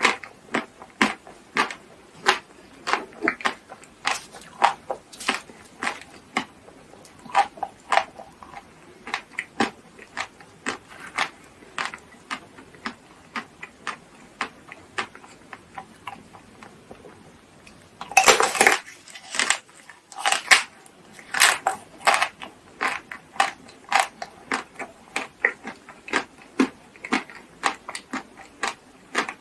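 Close-miked eating: chewing with many short, wet mouth clicks at an uneven pace. About 18 seconds in comes a louder burst of crunching or crackling, followed by a few more loud bites.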